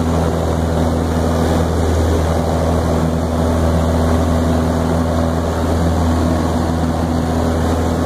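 Single-engine light aircraft's engine and propeller droning steadily in flight, heard from inside the cabin.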